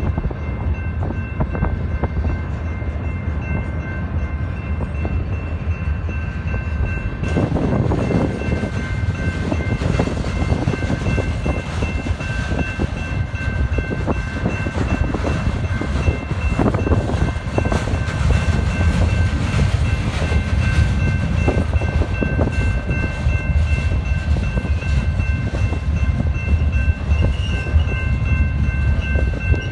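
BNSF freight train of pipe-loaded flatcars rolling past a grade crossing: a steady rumble and clatter of wheels on rail, which fills out about seven seconds in, with wind buffeting the microphone. A steady high ringing from the crossing bell runs underneath.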